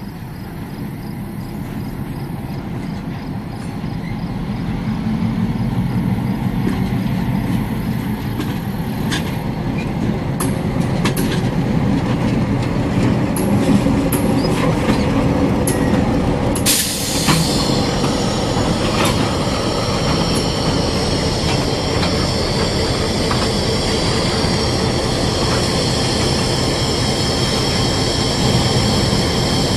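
A lash-up of three CN diesel locomotives, a GMD1 leading, running light past at close range. The diesel engines rumble, louder as they come near, with sharp wheel clicks over the rail joints. From just past halfway there is a steady high-pitched squeal from the wheel flanges on the rails.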